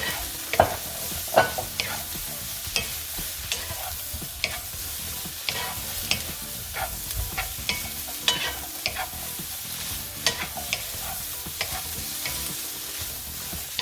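Carrots, onions and green bell peppers sizzling in a little oil in a pan while being stirred and tossed, the utensil knocking and scraping against the pan every second or so.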